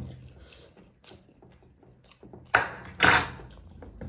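Dishes clattering: two loud knocks about half a second apart as a ceramic bowl is handled among metal plates, with faint clicks of eating around them.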